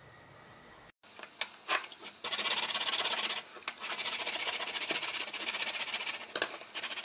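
Parsnip grated on the coarse side of a stainless steel box grater: a few light knocks, then a fast run of rasping strokes that breaks off briefly twice.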